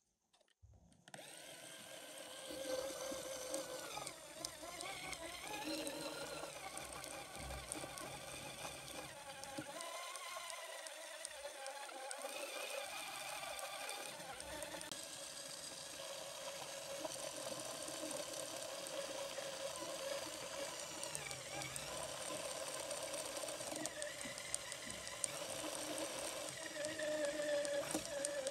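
LEGO Technic electric motor switched on about a second in, then running steadily and driving a small plastic gear train through a working clutch mechanism. Its whine wavers in pitch now and then.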